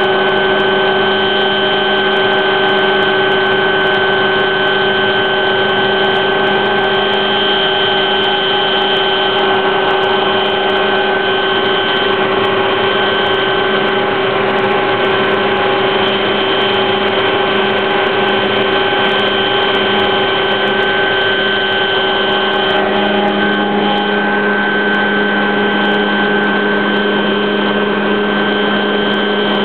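Helicopter engine and rotors heard from inside the cabin during takeoff and climb: a loud, steady running sound with several held tones, including a high whine. Near the end a lower tone grows stronger.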